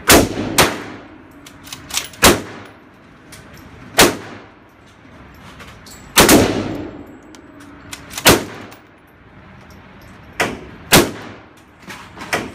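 Pistol shots fired one at a time at an uneven pace, about seven loud reports each one to two seconds apart, with a few fainter cracks in between. Each shot rings out in the echo of an indoor range.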